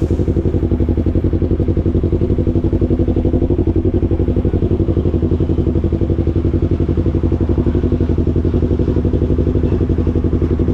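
Yamaha R3's parallel-twin engine idling steadily, an even, rapid pulsing with no revving.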